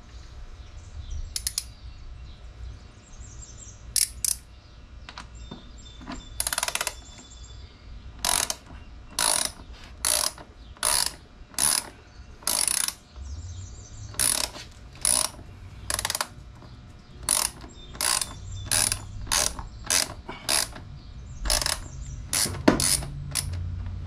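Socket ratchet wrench clicking in short runs on each back-swing as a bolt is turned: a few scattered strokes at first, then a steady rhythm of about one to one and a half strokes a second from about a third of the way in until near the end.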